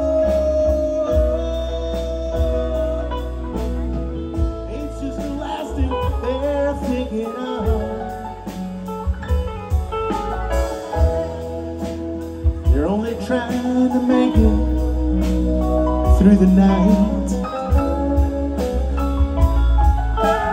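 Live band playing: electric guitars, steel guitar, keyboard and drums, with a few rising sliding notes.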